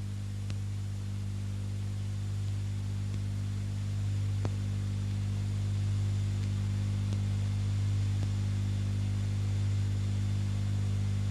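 Steady low electrical mains hum from the sound system or tape recording, with a couple of faint clicks.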